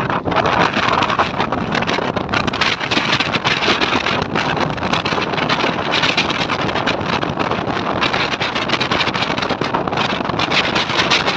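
Diesel-hauled express passenger train running, heard from on board: a steady, loud rush of wind and wheel-on-rail noise.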